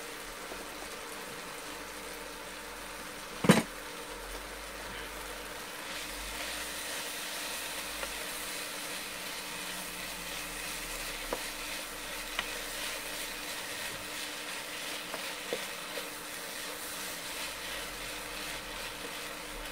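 Fried rice with shrimp sizzling steadily in a frying pan as it is stirred with a wooden spatula. One sharp knock about three and a half seconds in, with a few light taps later.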